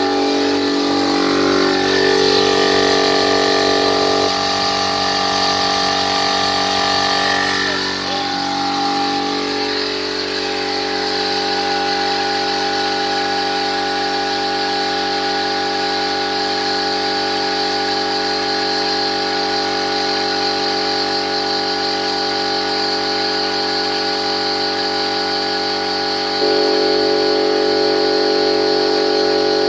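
Aldi oil-lubricated air compressor running steadily, its motor and pump building pressure in the tank; a steady hum that steps up a little in loudness near the end.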